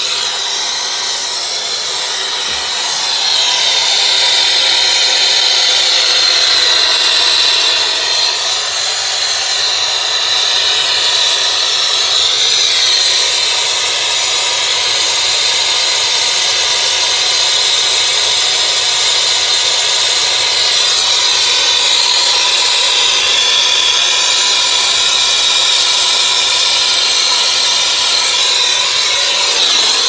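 Brazing torch flame hissing steadily while copper refrigerant lines are brazed onto a new heat pump compressor.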